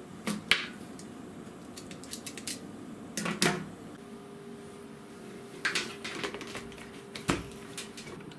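Clicks and clatters of small parts being handled on a workbench: crimp terminals rattled in a plastic organizer box, then a mains cable and plug moved about. There are a few short bursts of clatter, and a faint steady hum comes in about halfway.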